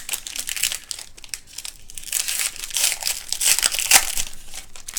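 Foil trading-card pack wrapper crinkling as it is handled and opened, a dense crackle that is busiest from about two to four seconds in.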